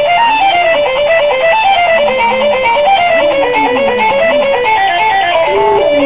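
Phone ringtone playing a fast, repeating run of plucked, guitar-like descending notes, with a hound howling along in low wavering rises and falls, once near the start and again from about three seconds in.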